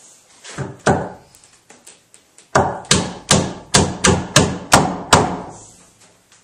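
Hammer blows driving a tapered wooden peg through an offset draw-dowel hole in a tenon, drawing the joint tight. There are two strikes about a second in, then a quick run of about eight blows, roughly three a second, each ringing briefly.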